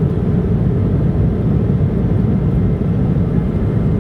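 Steady low rumble of an airliner's jet engines heard inside the passenger cabin, constant in level.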